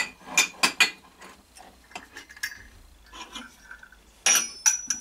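Glasses and silver cups being moved about on a wooden cabinet shelf. A few sharp knocks come in the first second, then light handling, then a burst of ringing metal clinks near the end.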